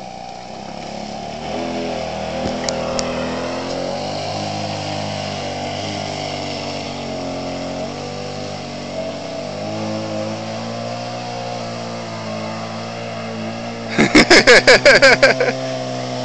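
Small two-stroke string-trimmer engine driving a radio-controlled boat, running steadily under throttle, its pitch wavering slightly and shifting about ten seconds in. About fourteen seconds in there is a loud crackling burst on the microphone lasting about a second.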